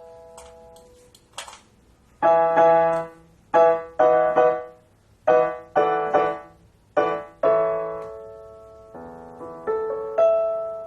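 Roland EP-7 digital piano played in a piano voice: a series of struck chords, each sounding and dying away, after a short gap. A softer run of notes and a final held chord come near the end.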